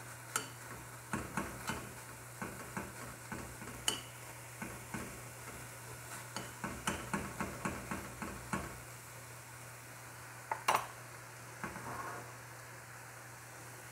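Metal spoon scraping and tapping against a stainless steel frying pan as flaked tuna and onions are stirred and pressed, over a light sizzle of frying. The stirring stops about nine seconds in, and a single louder knock follows shortly after.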